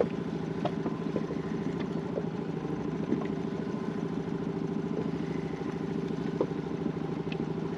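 An engine running steadily at an even, low speed, with a few faint clicks over it.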